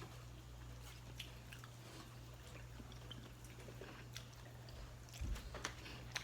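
People eating: faint chewing with scattered small clicks from the table, over a low steady hum, and a soft low thump about five seconds in.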